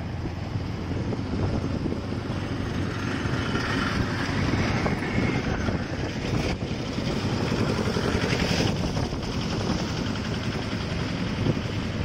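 Riding noise on a moving motorcycle: a steady rush of wind on the microphone over the engine and the tyres on the road, with the hiss growing louder for a few seconds in the middle.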